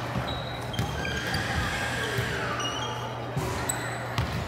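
Volleyball play on a hardwood gym court: sneakers squeaking, a few sharp thuds of the ball, and chatter from players and spectators in the echoing hall.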